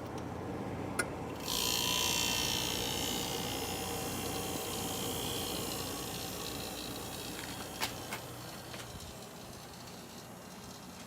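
GM Frigidaire window air conditioner being started on cool: a switch click, then a sudden loud rush of hiss that slowly fades over the next several seconds, over the steady hum of the unit. A couple more clicks come near the end.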